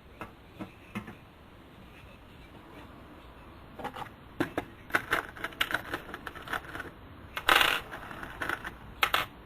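Small metal hardware clinking and tapping as it is handled: a run of light clicks starting about four seconds in, with a louder, longer rattle a little after seven seconds.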